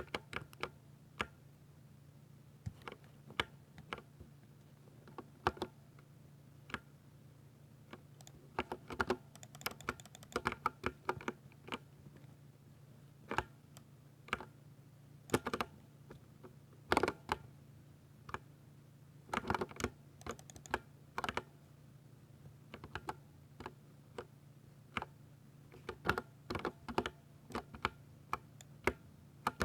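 Typing on a Ducky mechanical keyboard with Cherry MX Silver linear switches: irregular keystroke clicks, some single and some in quick runs, over a faint steady low hum.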